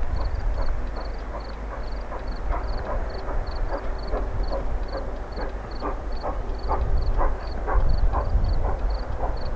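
A train rolling along the rails: a steady low rumble with a fast, even high clicking about three times a second and irregular knocks and rattles.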